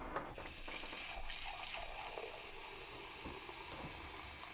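Freshly poured champagne fizzing in an enamelled pot on the stove: a faint, steady hiss of bursting bubbles.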